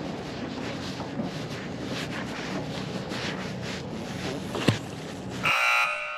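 Steady outdoor wind-and-water noise under a faint low hum, with a sharp knock about four and a half seconds in and a brief, loud hiss just before the end.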